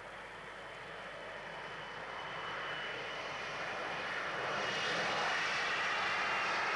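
Jet airliner's engines running with a rushing sound and a high whine, growing steadily louder.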